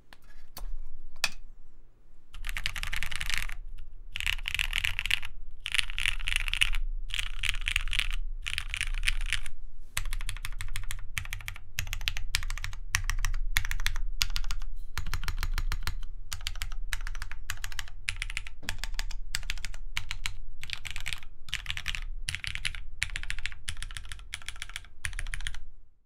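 Typing on a Phoenix R1 mechanical keyboard with a brass base, ABS plate and lubed Cherry MX Black linear switches. A few single clicks come first, then fast runs of keystrokes in roughly one-second bursts, then steadier individual key presses.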